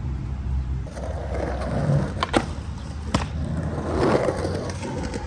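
Skateboard wheels rolling on concrete with a steady rumble, and three sharp clacks of the board between about two and three seconds in.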